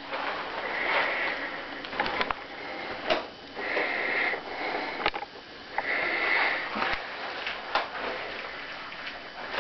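Three short breathy hisses of air, with scattered clicks and rubbing as inflatable latex suits are handled.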